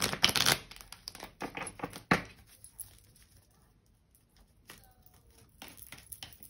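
Cards being handled on a table: a run of soft rustles and clicks, one sharper tap about two seconds in, then a few light taps near the end.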